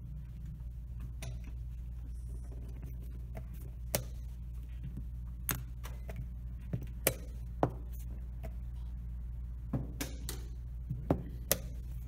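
Chess pieces being set down on a roll-up vinyl board and digital chess clock buttons being tapped during a fast blitz game: a string of sharp clacks at uneven intervals, some in quick pairs. A steady low hum runs underneath.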